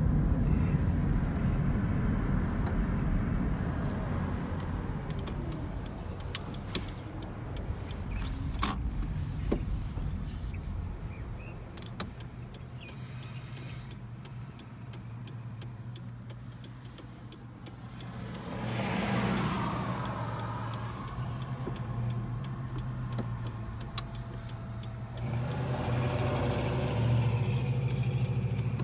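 Car cabin noise while driving slowly: a steady low road and engine hum that swells twice in the second half, with a few scattered sharp clicks.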